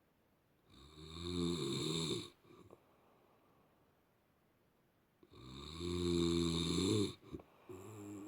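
A person snoring loudly: two long snores about four and a half seconds apart, each lasting a second and a half, then a shorter, weaker one near the end.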